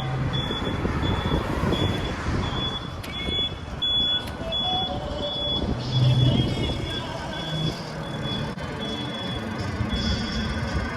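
An electronic beeper gives a high tone repeated evenly, about two beeps a second, over the low rumble of street traffic.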